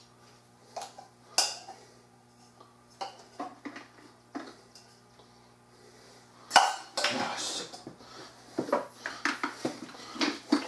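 Metal hand tools and hardware clinking while a pressure washer is put together by hand: a few sharp separate clinks, then a loud clatter about six and a half seconds in, followed by uneven rattling and knocks.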